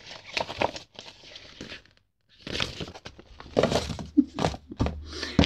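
Paper pattern envelopes and packaging being handled and shuffled on a table: irregular rustling and crinkling, with a short lull about two seconds in and a bump of something set down near the end.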